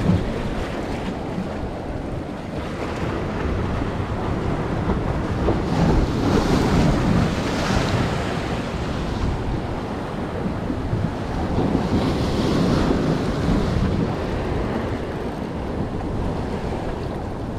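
Ocean surf washing over jetty rocks, with wind noise on the microphone; the wash swells up twice, about a third of the way in and again past the middle.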